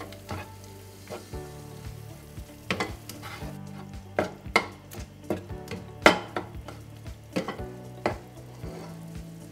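Ground turkey sizzling in a frying pan while a slotted spatula stirs it, with sharp scraping strokes against the pan every second or so; the loudest comes about six seconds in.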